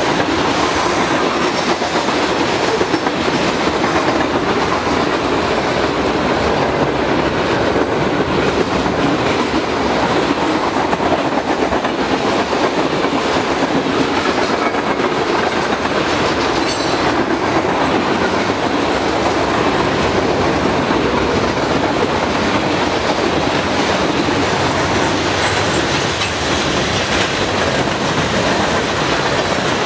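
Mixed freight train cars rolling past: a steady, loud rush of steel wheels on rail.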